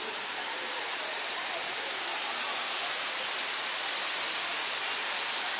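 Steady rushing of falling water: a waterfall's even hiss.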